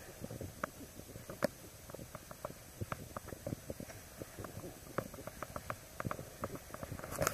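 Skis sliding slowly over packed snow: an irregular run of small crackles and scrapes, several a second, with a louder scrape near the end.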